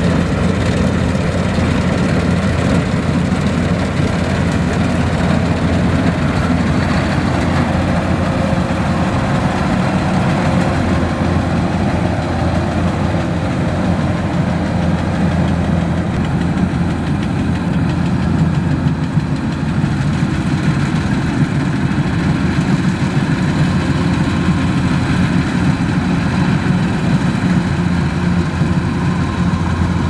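Kubota DC-105X rice combine harvester running steadily as it cuts standing rice, its diesel engine under working load giving a loud, even, low hum.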